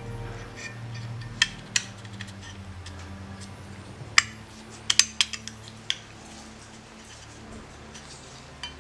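Light metallic clicks and clinks of a small homemade sheet-metal carburetor part being handled and fitted into place: a couple of taps, then a quick cluster of them about halfway through, over a low steady hum.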